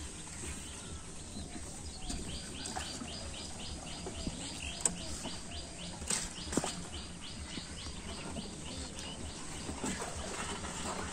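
A rapid series of high chirps, about four a second, going on for several seconds, with a couple of sharp knocks in the middle.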